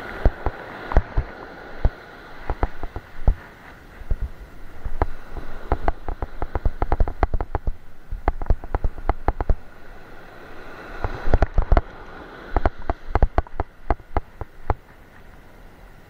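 Irregular clicking and knocking from a spinning rod and reel being worked while a fish is on the line, in two long runs, over a steady wash of surf.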